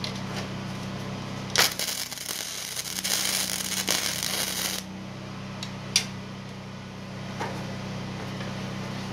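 Flux-core (gasless) wire-feed welder arc crackling for about three seconds as a short spot weld is laid across a butt joint in thin sheet steel at the lowest heat setting. It starts with a sharp pop and cuts off suddenly. A steady low hum lies underneath, and there is a single sharp click about six seconds in.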